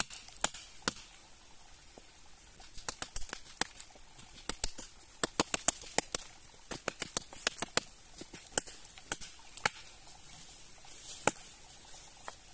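A heavy handmade Manifaco bushcraft knife chopping into a thin green sapling trunk: a long run of sharp blade strikes on wood, some spaced out and some in quick flurries.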